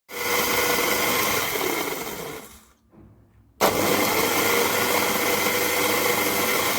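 300 W electric coffee grinder with stainless steel blades running in two bursts: a steady high motor whine with grinding noise that winds down after about two and a half seconds, then, after a second's pause, starts again abruptly and keeps running.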